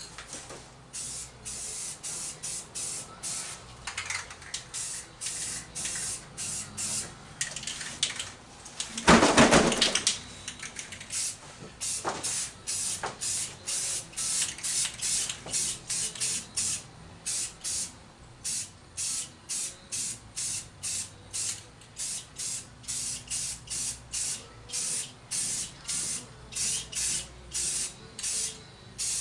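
Aerosol can of gloss enamel spray paint hissing in short bursts, about two a second, as a wheel is given a heavy coat. A louder, longer burst comes about nine seconds in.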